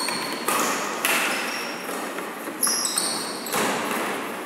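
Badminton doubles rally: rackets striking the shuttlecock in sharp hits about half a second to a second and a half apart, about five in all, with short high squeaks of shoes on the wooden court, echoing in a large hall.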